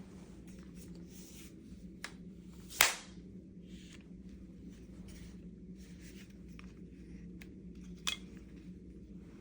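Three sharp clicks or knocks, the loudest about three seconds in and another near the end, over a steady low hum.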